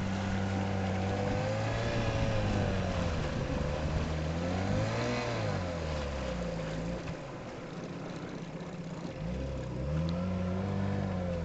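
Chrysler 6 hp two-stroke outboard motor driving a small aluminium boat, its engine speed rising and falling several times, dropping lowest about two-thirds of the way through before picking up again near the end. It is running on a fuel mix the owner says was off.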